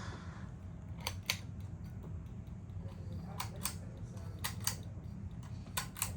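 A ceiling fan's pull-chain switch clicking in pairs, four times, over a steady low hum.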